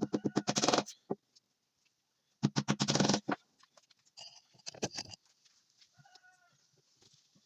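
Farm animal calls: two loud, rapidly pulsing calls about two seconds apart, then a weaker one and some faint short calls near the end.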